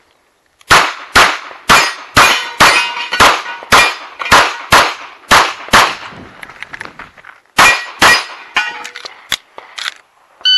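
Pistol shots fired in quick succession during an IPSC stage: a string of about eleven shots at roughly two a second, a pause of under two seconds, then two more shots and a few faint ticks.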